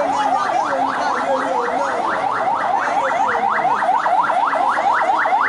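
Emergency vehicle siren on a fast yelp: a short rising sweep, each one dropping back sharply, repeated about five times a second.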